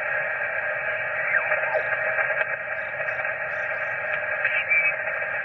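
Static and band noise from the speaker of a Yaesu FT-857 HF transceiver as it is tuned in upper sideband across the 20-metre band. The hiss is steady and thin, and a few faint garbled sideband signals slide past in pitch as the dial turns.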